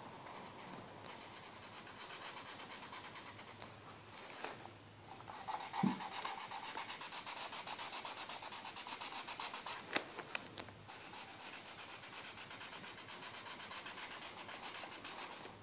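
Yellow Crayola Supertips felt-tip marker scratching over activity-pad paper in quick back-and-forth colouring strokes. There is a short knock about six seconds in and a sharp click about ten seconds in.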